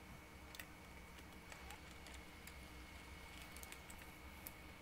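Faint light clicks and taps of plastic parts being handled and pressed into place on a computer's back cover, a few scattered over a few seconds, over a faint steady high tone.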